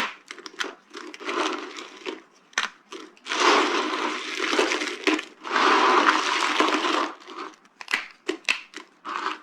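Dry soap being crushed, crunching and crackling: scattered sharp cracks, with two longer bouts of dense crunching in the middle.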